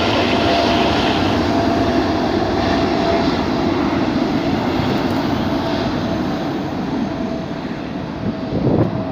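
Jet engine noise from a Cargolux Boeing 747 freighter moving along the runway: a steady, loud roar with a whining tone. The whine fades about two thirds of the way through and the roar slowly drops off as the aircraft moves away, with a few bumps of wind on the microphone near the end.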